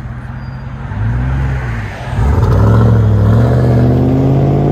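2002 Chevy Avalanche 5.3L V8 running through a Vibrant muffler and high-flow cats: a brief rev about a second in, then from about two seconds in it gets louder and the pitch climbs slowly as the truck accelerates.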